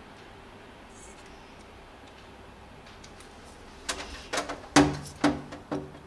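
Quiet room tone, then from about four seconds in a quick run of sharp clicks and knocks from the plastic and metal parts of a dismantled hair dryer being handled, the loudest a little before five seconds in.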